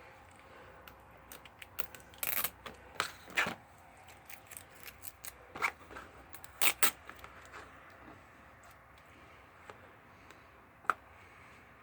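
A toy art set's retail box being opened by hand: scattered clicks, crinkles and short scrapes of cardboard and plastic packaging, a few louder snaps among them.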